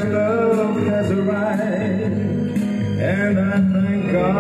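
Music playing from a vinyl record on a Victor QL-7 direct-drive turntable, a melody over a steady accompaniment.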